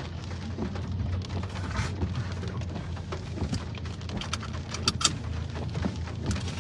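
Steady low rumble inside a parked car in a thunderstorm, with a few sharp ticks of raindrops on the car about five seconds in.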